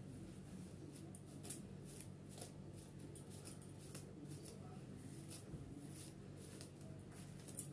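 Long hair rustling faintly as fingers run and comb through it, a run of short swishes about one a second.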